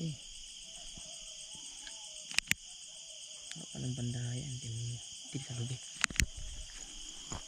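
Night insects, crickets, trilling steadily. A pair of sharp clicks comes about two and a half seconds in and another pair about six seconds in, with a low voice murmuring between them.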